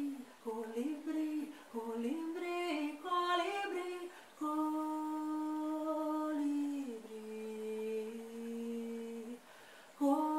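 A woman's unaccompanied wordless singing: a short melody of changing notes for about four seconds, then a long held note that slides down to a lower held note, which stops about nine seconds in.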